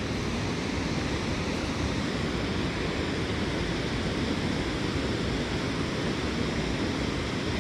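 Steady rush of flowing stream water, an even hiss with no breaks or single events.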